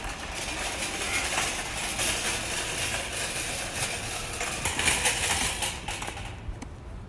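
Metal shopping cart pushed over pavement, its wheels and wire basket rattling steadily; the rattle dies away about six seconds in.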